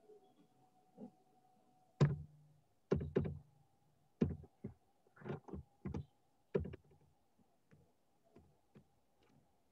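A string of irregular knocks and thuds, about eight in five seconds, the loudest about two seconds in, over a faint steady hum.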